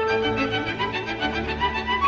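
Chamber string orchestra playing classical music, the violins leading in a fast run of quick, evenly spaced bowed notes over lower strings.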